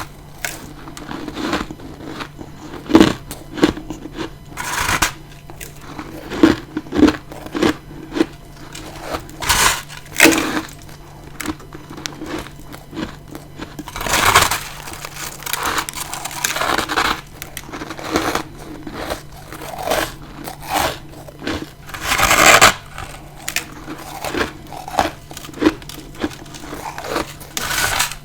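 Close-up bites into hard-frozen freezer frost: crisp crunches at irregular intervals, with a few longer, louder crunching bites about halfway through and again about four-fifths of the way through. A faint steady low hum sits underneath.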